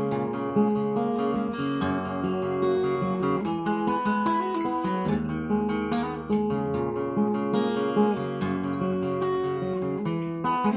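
Solo acoustic guitar playing a chord pattern, the chord changing every so often and the notes ringing on.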